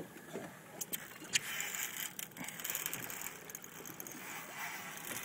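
Spinning fishing reel being cranked under load from a hooked tarpon, with scraping handling noise and a few sharp clicks, over a faint hiss of wind and sea.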